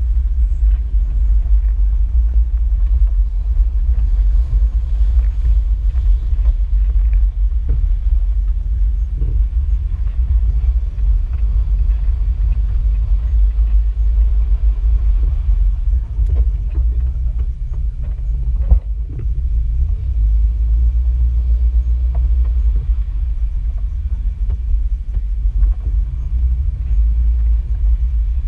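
Wind buffeting the microphone: a loud, low rumble with no steady pitch, broken by a single sharp knock about two-thirds of the way through.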